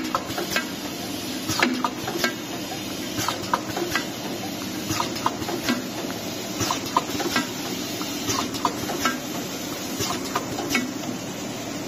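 Automatic egg tart shell forming machine running: a steady motor hum with frequent irregular clicks and clacks, about two a second, from its indexing turntable and pressing heads.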